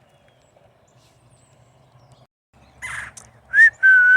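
A person whistling a two-note call to the birds: a short rising note, then a held steady note, about three and a half seconds in. It is preceded by a brief harsh, scratchy sound.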